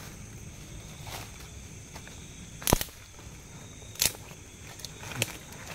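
Dry firewood sticks snapping: two sharp cracks about a second and a half apart, then a smaller crack near the end.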